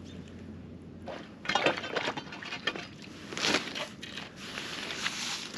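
Ice and slush crunching and crackling in an ice-fishing hole as fishing line is worked free and pulled up through it, in a few irregular bursts.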